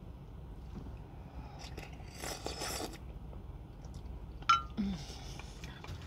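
Someone eating borscht. There is a short slurp from a spoon about two seconds in, quiet chewing, then a sharp clink with a brief ringing as the spoon is dropped into a glass mug.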